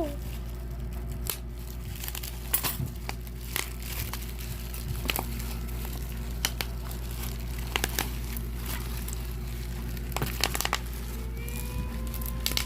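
Packaging being handled and opened: irregular crinkling and crackling rustles with scattered sharp clicks, over a steady low hum.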